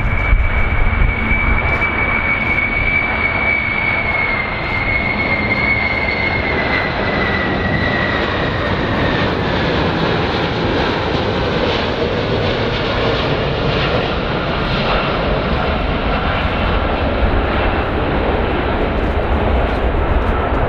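Boeing 747 VC-25A's four turbofan engines on landing approach: a steady jet rumble with a high whine that slowly falls in pitch.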